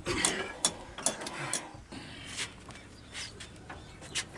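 An old 22 hp, 300 rpm stationary diesel engine with a large flywheel being turned over with a hand crank. The crank and engine gear make sharp metallic clicks and clatter, several a second for the first couple of seconds, then more spaced out.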